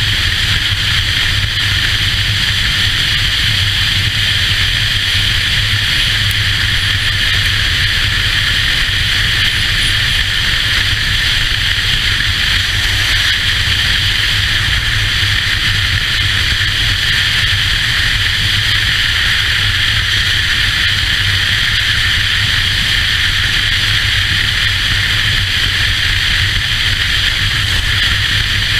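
Steady rush of wind at road speed over a touring motorcycle, with the low drone of its engine running underneath at a constant pace.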